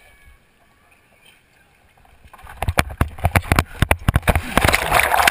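Water splashing and slapping right at the camera, with many sharp slaps over a churning rush. It starts about two and a half seconds in and grows louder toward the end.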